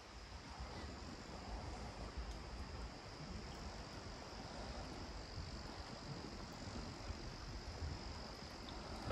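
Insects chirring in a steady, high, even drone, over an uneven low rumble of wind on the microphone.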